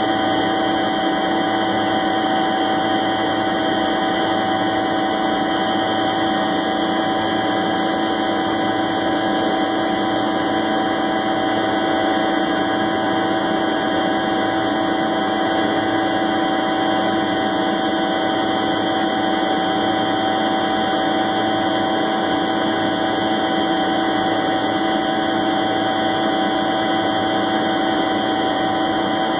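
A UH-1 Huey helicopter in steady flight, heard from aboard: its turboshaft engine and two-bladed rotor make a constant loud drone with several unchanging tones, low and high.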